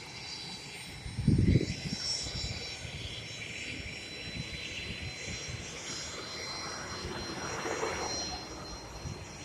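Aircraft engine running: a steady rushing noise with a thin high whine. A short low thump comes about a second and a half in.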